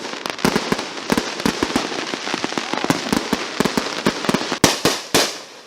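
Fireworks going off: a dense crackling of many rapid small pops, with a few louder bangs near the end.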